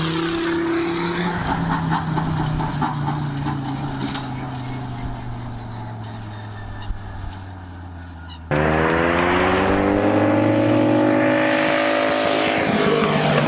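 A powerful vehicle engine running, its pitch and loudness slowly falling as it moves away. About eight and a half seconds in, an abrupt cut to a louder engine revving up, its pitch rising.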